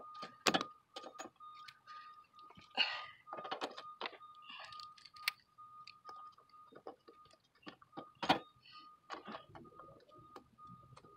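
Scattered metallic clicks and knocks as a pneumatic cart wheel with a plastic hub is pushed onto its steel axle by hand and its washer and pin are handled. The loudest clicks come about half a second in and again about eight seconds in, over a faint steady high tone.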